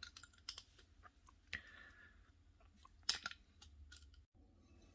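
Faint small metal clicks and scrapes as the extractor is pried out of a pistol slide, the sharpest clicks about a second and a half and three seconds in.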